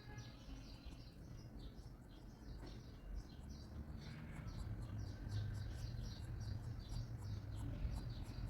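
Graphite pencil scratching on paper in quick, short repeated strokes, two or three a second, as shading is laid down. A faint low hum runs underneath.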